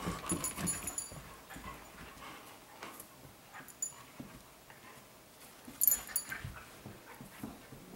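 A standard poodle puppy and an adult standard poodle play-wrestling: faint dog whimpers and scuffling, with scattered clicks from their claws on the wooden floor and a brief burst of clicking and jingling about six seconds in.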